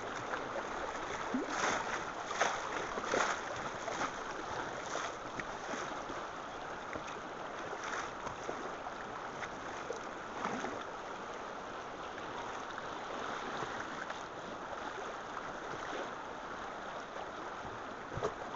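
Fast river water rushing and slapping against the hull of a small paddle boat, with a run of louder splashes in the first few seconds.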